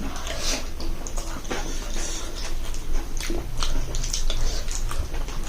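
Mouth sounds of eating kheer, sticky rice pudding, with achar: chewing and wet lip smacks, a string of short irregular clicks over a steady low hum.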